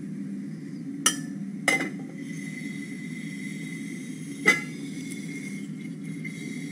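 Three sharp glass clinks, about one second in, shortly after, and about four and a half seconds in, each ringing briefly, as a glass cover is set on a glass beaker in which sodium is reacting with water. A steady low hum runs underneath.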